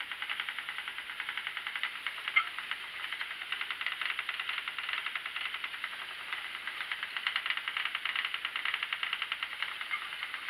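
Schacht Sidekick spinning wheel running steadily as it plies yarn, its flyer and bobbin whirring with a rapid, even ticking, several ticks a second. One sharper click about two seconds in.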